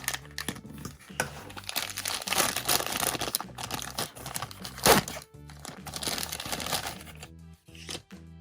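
Plastic packaging crinkling as a small toy piece is unwrapped, with a sharp snap about five seconds in, over background music.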